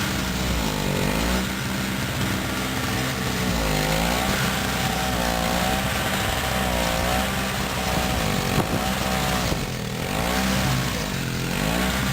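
Two-stroke snowblower engine running under load. Its pitch sags and recovers about every second and a half as it works through heavy wet snow.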